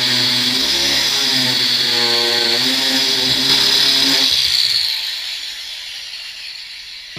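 Angle grinder with a shrinking disc running against a warped steel door skin, heat-shrinking the panel to take out its bounce. It runs with a steady whine, cuts off about four seconds in, and its whine fades away.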